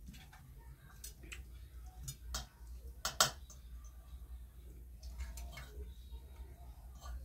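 Eating with cutlery: a scattering of short clicks of spoon and fork against a plate, the loudest a little after three seconds in.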